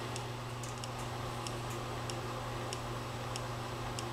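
Homemade rotary-displacer Stirling-type heat engine running slowly, its linkage giving a light, regular tick a little under twice a second, over a steady low hum.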